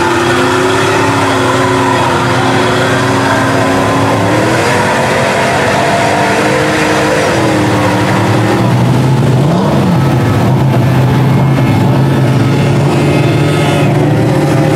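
Lifted Chevrolet Avalanche mud truck's engine revving under load as it plows through deep mud and water. The engine pitch climbs about four and a half seconds in, and there is a quick rise and fall in revs near ten seconds.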